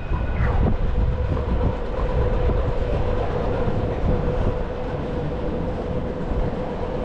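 City street ambience: a steady low rumble with a constant mid-pitched hum that sets in about half a second in, and wind on the microphone.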